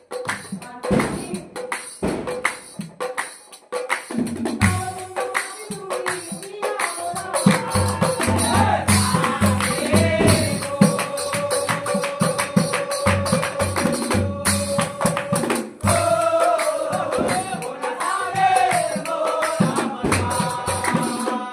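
Nagara naam devotional music: fast clashing hand cymbals and beaten drums, joined about four seconds in by chanted singing with long held notes.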